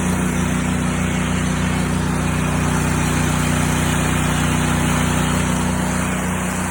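Honda GX690 V-twin engine running steadily, driving a belt-drive 8 gpm pressure-washer pump, with the hiss of water discharging at full flow.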